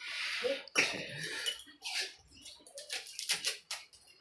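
People eating pani puri from plates: a string of short clinks and noisy crunching and slurping bursts, several in quick succession about three seconds in.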